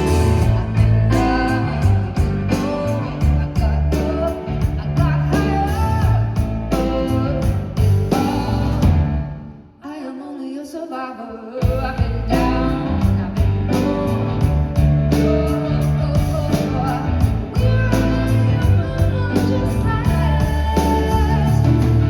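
Live band performing a song, with guitar, bass and drums and a woman singing. Near the middle the band drops out for about two seconds, then comes back in at full strength.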